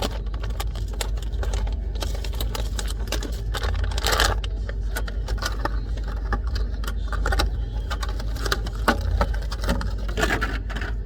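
Toy packaging being handled and opened: irregular plastic crinkling, rustling and clicking, over a steady low rumble.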